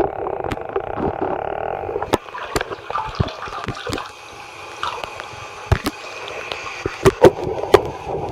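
Muffled, steady sound from a camera under bathtub water. About two seconds in the camera comes out, and water drips and splashes around leather work boots standing in the tub, with the sharpest splashes near the end.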